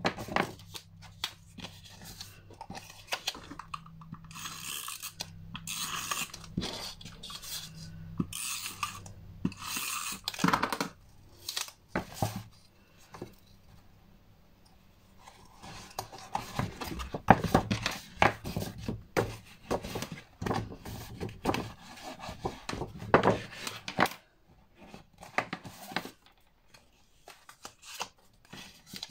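Paper and card being handled while small boxes are folded and stuck with double-sided tape: irregular rustles, scrapes, creases and light taps as the pieces are pressed together. A low steady hum sits under the first part.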